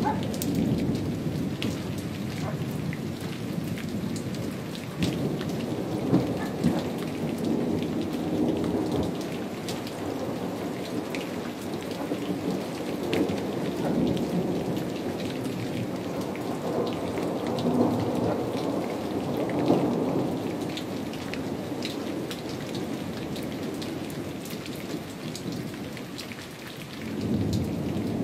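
Thunder from a lightning storm rumbling in slow, rolling swells, three times, over steady rain with scattered drops ticking.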